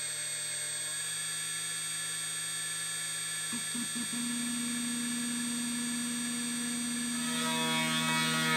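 High-speed spindle of a CNC router running with a steady whine. A new, lower hum from the machine joins about three and a half seconds in, and a set of higher tones comes in near the end as the 6 mm end mill moves down.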